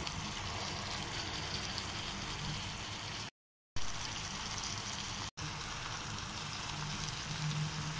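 Chicken pieces sizzling and bubbling in oil and their own juices in a frying pan, a steady hiss. The sound cuts out completely for about half a second a little before the middle, and drops out again for an instant about five seconds in.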